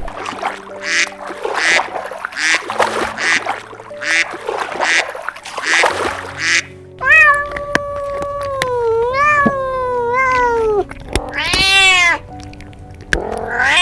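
An animal's long, wavering cries that slide up and down in pitch, following a run of short rhythmic sounds, over background music.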